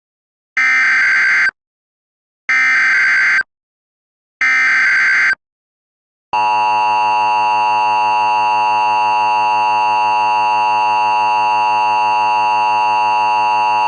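Emergency Alert System tones opening an alert broadcast. First come three one-second bursts of SAME header data, a harsh digital warble, each followed by a gap. Then, about six seconds in, the steady, unbroken two-tone attention signal begins.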